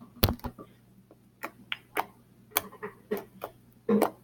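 Thick, sticky homemade glue slime being poked and kneaded on a tabletop: a string of small, irregular clicks and pops, about a dozen, with a heavier thump about a quarter second in.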